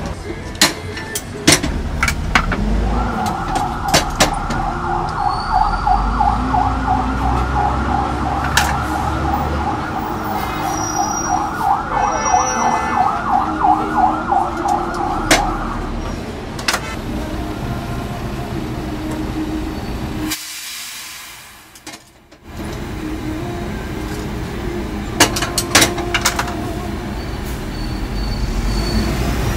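A siren warbling fast, about three pulses a second, for some thirteen seconds over steady street noise. Sharp metal clanks from cast-iron hotteok presses being opened and shut come throughout. The sound drops almost out for about two seconds past the middle.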